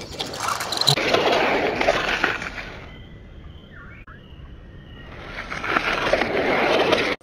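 Lightning McQueen toy car's wheels rolling over a hard tabletop: a rolling rumble for about the first three seconds, dying down, then rising again from about five seconds in.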